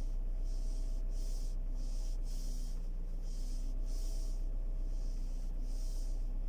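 Steady low rumble of a car interior with a faint steady hum, overlaid by soft hissing pulses that repeat about every two-thirds of a second.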